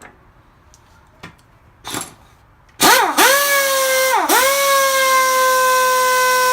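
Pneumatic impact wrench. A few light clicks, then the air motor starts with a loud, steady whine that sags in pitch and picks back up twice as the trigger is worked, then holds steady.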